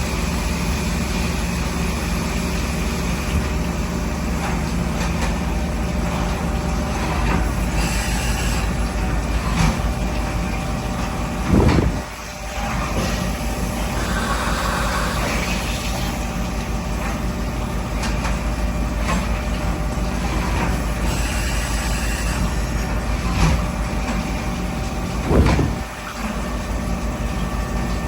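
Machining center running through a cutting cycle: a steady machine hum with fixed low tones, broken twice, about halfway through and near the end, by a brief rising surge that cuts off into a short dip.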